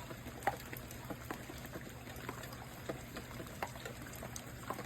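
Raindrops dripping and tapping in scattered, irregular drops, a few each second, over a low steady hum.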